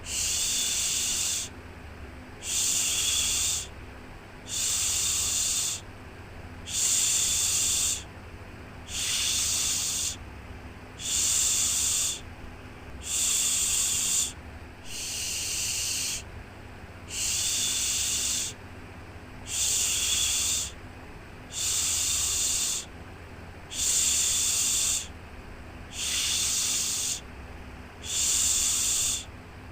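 Rhythmic shushing for soothing a baby: a long hissing "shhh" about every two seconds, each lasting a little over a second, over a faint steady low hum.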